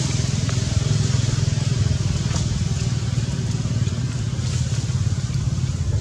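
A motor vehicle engine running steadily: a continuous low rumble with a hiss above it.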